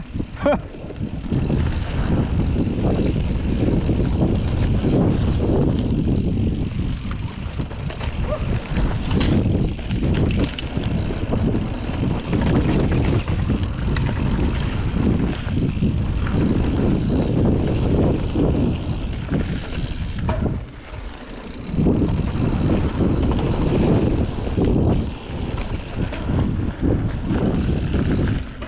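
Wind buffeting the action camera's microphone on a fast mountain bike descent, with the tyres rolling over a packed dirt trail. A loud, uneven rumble that eases briefly about twenty seconds in.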